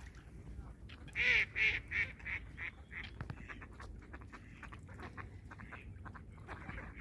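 Waterfowl calling: a quick run of about six loud nasal calls starting about a second in, each weaker than the last, followed by fainter calls and scattered small clicks.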